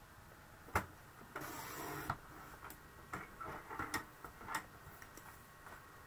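Card and small craft items being handled on a desk: a sharp click about a second in, a brief rustle of card just after, then scattered light taps.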